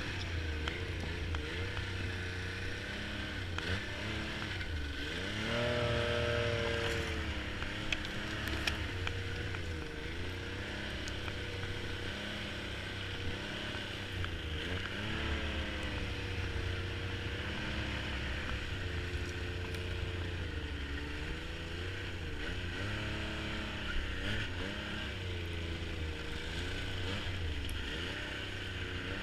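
Snowmobile engine running, its pitch rising and falling as the throttle is worked, with a marked rise in revs about six seconds in.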